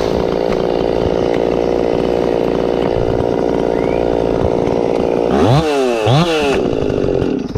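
Chainsaw running steadily under load, cutting into a pine trunk. About five seconds in, it is revved up and down twice in quick succession, then drops off near the end.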